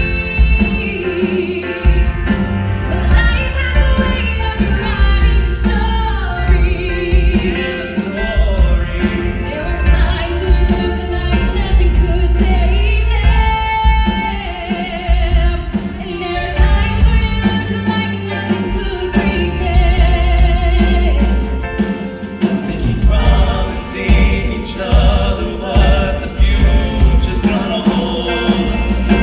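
Live band playing a song through a PA: piano, acoustic and electric guitars and drums under a woman and a man singing a duet on handheld microphones.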